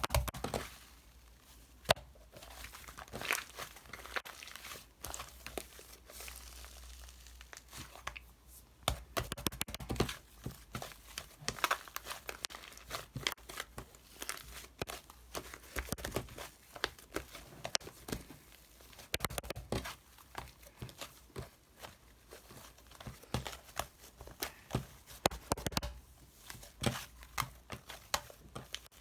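Irregular crinkling and rustling, dotted with many short sharp clicks and a few louder snaps, from something being handled close by.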